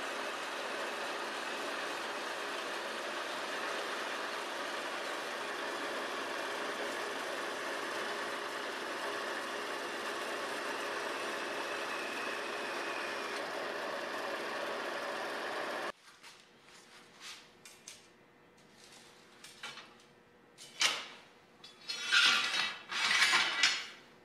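Horizontal metal-cutting bandsaw running steadily, stopping abruptly about two-thirds of the way through. After it, quieter rustling and then several loud clanks and scrapes of steel bar stock being pulled from a pile.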